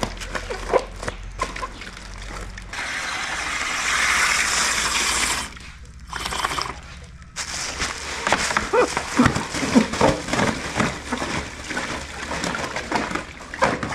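Oxygen hissing from a cylinder hose into a plastic fish-fry transport bag, a steady hiss of about three seconds, then a short second burst. Around it the plastic bag crinkles and the water inside sloshes as the bag is handled and twisted shut.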